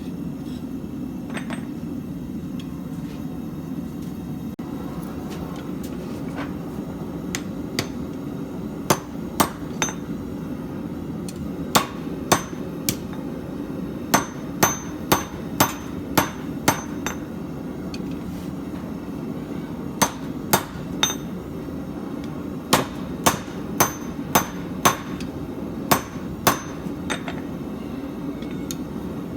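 Hammer blows on steel at an anvil, in irregular runs of strikes with short pauses between, each strike ringing briefly. A steady low hum runs underneath.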